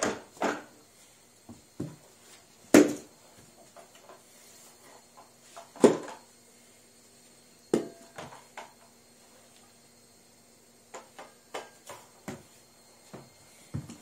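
Knocks and clatters of a Numatic Henry vacuum cleaner's metal wand tubes and plastic body being handled and bumped, with the motor off. A few sharp knocks a few seconds apart, the loudest in the first half, then a run of lighter taps and clicks near the end.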